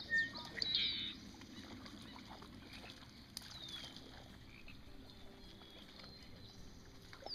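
Outdoor pondside ambience at dusk. A bird gives quick, falling high chirps in the first second, then one more falling whistle about three seconds in, over low steady background noise.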